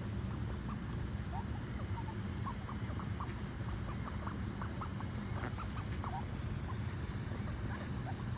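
Ducklings peeping and chattering in many short, scattered chirps, over a steady low background rumble.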